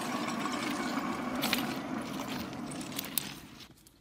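KZV manual track-measuring trolley rolling along steel rails: a steady rumble from its wheels with a few sharp clicks, dying away near the end as it comes to a stop.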